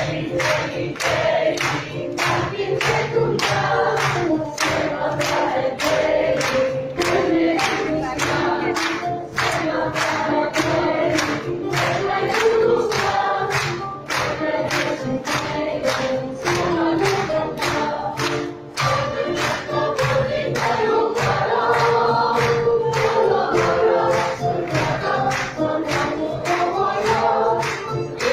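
Choir singing live with instrumental accompaniment in a concert hall, with the audience clapping along on the beat, about two claps a second.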